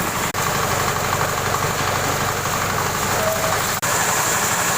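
Chicken-feed crumbler machine running steadily: a low engine-like hum under a noisy hiss. The sound drops out for an instant twice.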